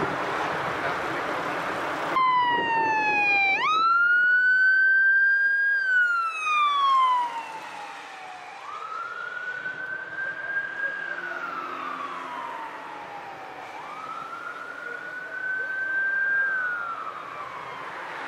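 Wind buffeting the microphone, then, about two seconds in, a fire and rescue vehicle's siren starts up. It wails slowly, rising, holding and falling about every five seconds.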